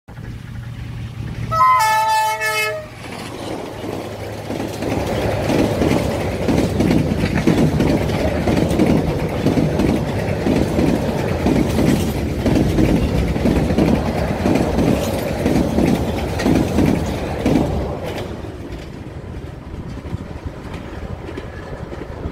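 Diesel-hauled passenger train sounding its horn once, briefly, about two seconds in, then passing close by with a steady rhythmic clatter of wheels over the rail joints that fades over the last few seconds.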